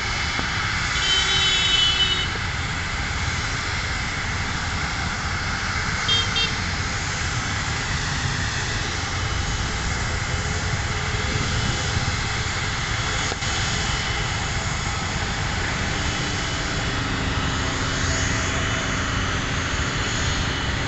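Steady jet engine noise from airliners on the airfield. Short high-pitched chirps come about a second in and again around six seconds. From about sixteen seconds a steady engine whine joins in as a jet comes in to land.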